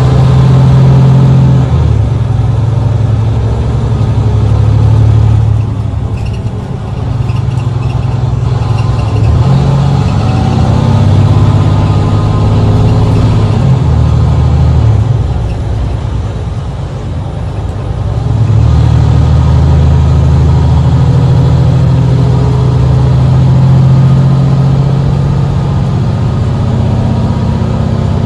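Mercedes-Benz Citaro C2 city bus's diesel engine pulling hard under kickdown, its note rising and falling several times as the bus accelerates, with quieter spells about six and seventeen seconds in.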